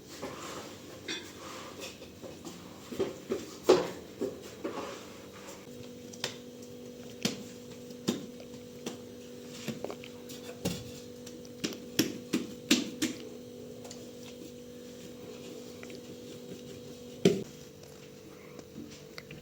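Household clatter: scattered clinks and knocks, like dishes and utensils being handled, with a sharp knock about four seconds in and another near the end. A steady low hum starts about six seconds in.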